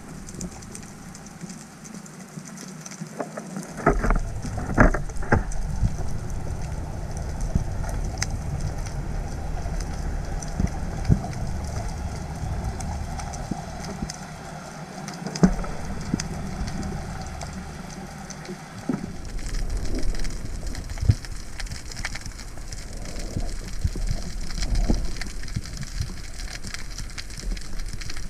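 Underwater sound picked up by a camera in its housing: a steady crackle of small clicks over a low rumble of water movement, with a few sharper knocks against the housing.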